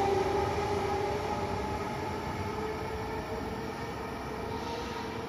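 Vivalto double-deck regional train pulling out, pushed by its E464 electric locomotive at the rear: a steady electric whine over a rolling rumble, climbing slowly in pitch as the train gathers speed and fading as it draws away.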